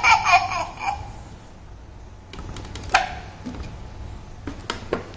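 Electronic Flik and Hopper room guard toy playing a recorded character voice through its small speaker, ending about a second in. A few sharp plastic clicks follow as the Flik figure is handled.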